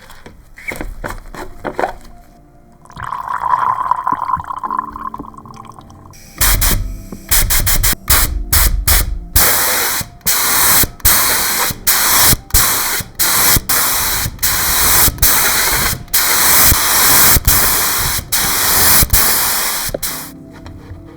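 A few clicks and a short tone, then, about six seconds in, a loud pressurised spray hissing in a long run of bursts with brief breaks between them.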